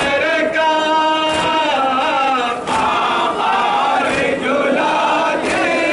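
Crowd of male mourners chanting together in a sustained, sung mourning chant, with a sharp beat about every second and a half.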